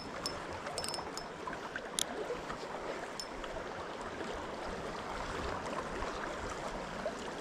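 Steady rush of flowing river water, with a few faint, short high ticks in the first three seconds.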